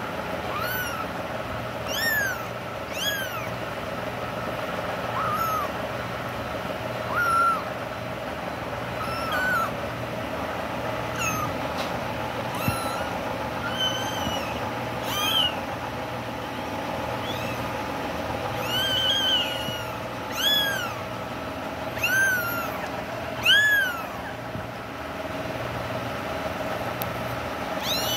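Young kittens mewing: short, high, arching calls every second or two, more frequent near the end, over a steady low background hum.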